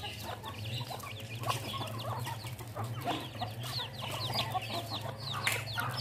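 A flock of chickens clucking, with chicks peeping in quick, high, falling notes throughout.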